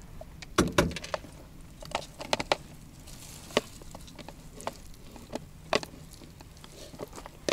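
Plastic spatula scraping and tapping in a frying pan as fried potatoes and egg are scooped out into a plastic container: a string of irregular clicks and knocks.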